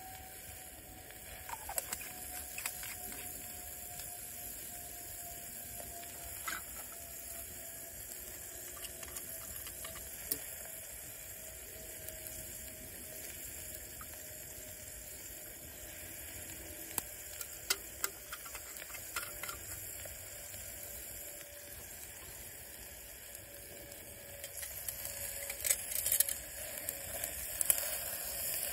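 Campfire cooking: a wood fire with scattered crackles and metal clinks against a cooking pot, over a faint thin whistle that slowly sinks in pitch. The clinks get busier and louder near the end as the pot is handled.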